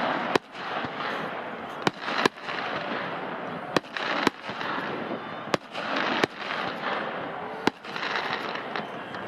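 Fireworks display: about eight sharp bangs of shells bursting at uneven intervals, with a steady hiss between them.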